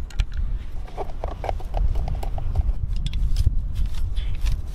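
Wind buffeting the microphone, with a quick run of light clicks about a second in that lasts under two seconds, then scattered rustles and knocks as a gas canister is fitted to a portable camping stove's hose.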